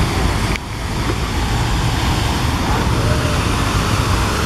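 Steady outdoor wash of road traffic mixed with the splashing of a large fountain's jets, with a brief drop in level about half a second in.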